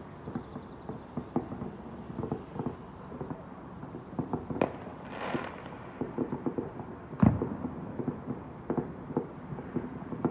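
Distant fireworks going off all across a city: many scattered bangs and pops. There is a brief crackle about five seconds in and one louder bang about seven seconds in.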